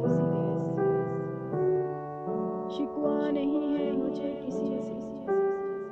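Soft piano background music: slow, held chords that change every second or so.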